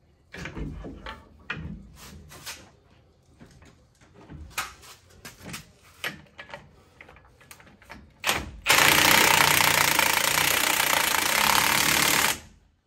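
Cordless impact wrench hammering a lower ball joint nut tight on a truck spindle, in one steady run of about three and a half seconds near the end. Before it come scattered clinks and knocks as the socket is fitted to the nut.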